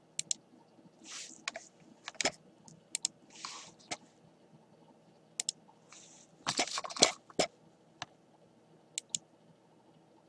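Computer mouse and keyboard clicks: several quick double clicks spread through, with a dense run of clicks and taps about six and a half seconds in, and a few soft rustles between.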